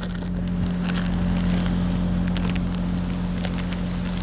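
Steady machine hum with one strong low tone, the kind a running engine or motor makes, with scattered light clicks and taps over it.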